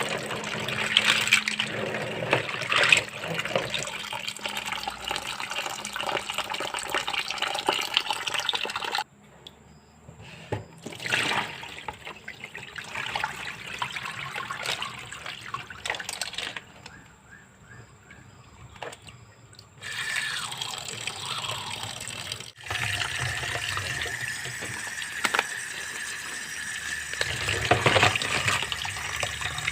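Water running and splashing in a kitchen, as from a tap into a sink or pot, changing abruptly several times along the way.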